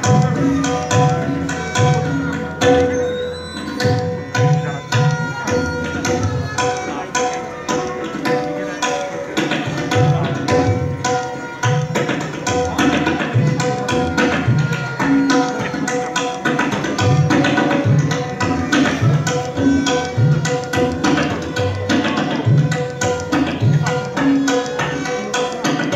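Tabla solo in teentaal: rapid strokes on the dayan with regular deep bass strokes on the bayan. Behind it runs a steady repeating melody played on a bowed string instrument.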